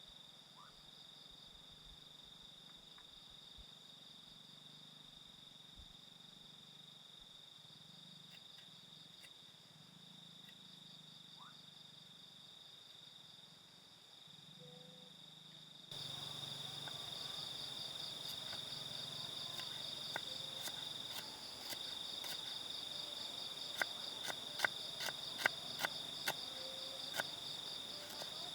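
Insects, likely crickets, trilling steadily in a high, even drone, louder from about halfway through. Near the end, a quick run of sharp clicks or taps.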